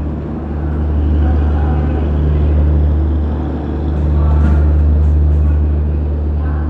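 Diesel generator set in an LHB train's luggage-brake-and-generator car running with a steady low drone as the train pulls slowly away from the platform; the drone swells and dips gently in loudness.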